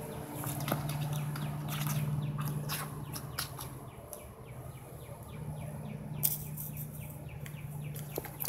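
Birds chirping outdoors in quick runs of short falling notes, over a steady low hum. Scattered light clicks and scuffs come from a kitten pawing and scrambling on concrete around a dry leaf.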